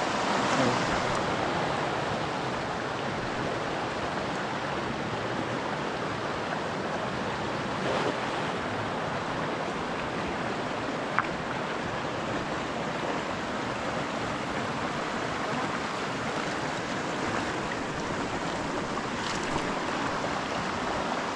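Shallow rocky river rushing steadily over stones and small rapids, with one brief sharp tick about eleven seconds in.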